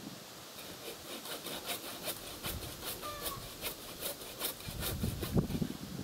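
Hand saw cutting through a willow branch in quick, regular back-and-forth strokes, several a second.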